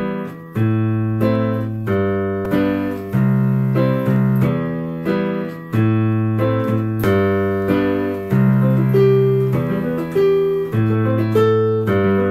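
Piano-sounding keyboard playing a piece: struck notes that each die away, chords over held bass notes, with a new note or chord about every half second to second. This is the recording played back with its background noise taken out by a denoiser plugin.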